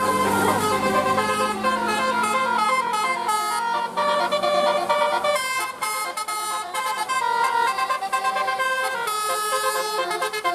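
Bus telolet horn of the Basuri type, a multi-tone musical horn playing a quick melody of short notes that step up and down in pitch. A low steady hum sits under the first few seconds.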